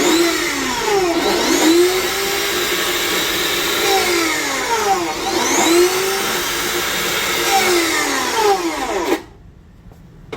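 Makita DLW140 cordless 355 mm metal cut-off saw running loudly, its noise sweeping up and down in pitch over and over; it cuts off suddenly about nine seconds in.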